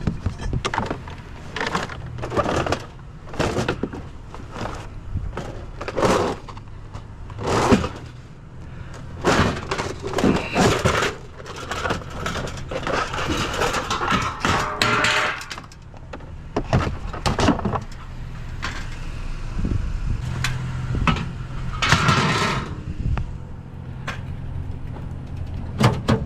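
Scrap being handled from a curbside junk pile: irregular clanks, knocks and rattles as metal and plastic items are pulled out and tossed, over a steady low hum.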